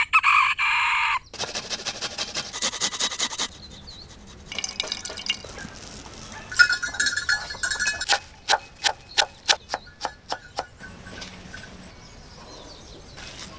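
A rooster crowing, cut off after about a second. Then food-preparation sounds follow as grated onion, chopped herbs and spices go into ground meat in a bowl: crackly handling noise, and later a run of about eight sharp taps.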